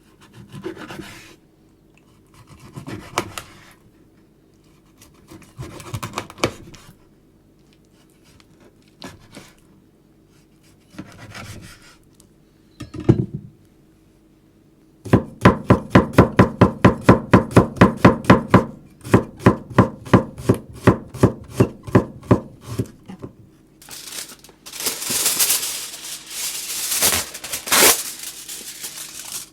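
A kitchen knife chopping food on a cutting board: a few scattered cuts and scrapes, then two runs of rapid, even chops at about six a second, followed by several seconds of rustling near the end.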